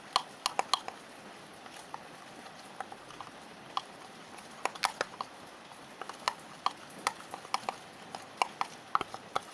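A stirrer clicking and tapping against the inside of a container while glue and powder are stirred together into a slime base. The clicks are sharp and irregular, some in quick runs of two or three, with short gaps between.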